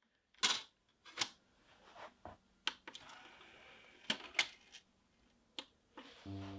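Plastic clicks and clacks of a compact hi-fi system's CD tray being loaded, with buttons pressed and a short whir of the tray mechanism. Near the end, piano music starts to play.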